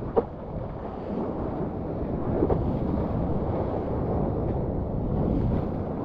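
Wind buffeting an action camera's microphone and water rushing and spraying around a surfboard as it rides a wave. There is a single sharp hit just after the start.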